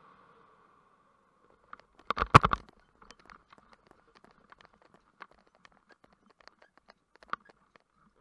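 A short cluster of knocks and scraping close to the microphone about two seconds in, then faint scattered ticks and rustles: handling noise from the paramotor pilot's gear and wing lines, with the engine silent.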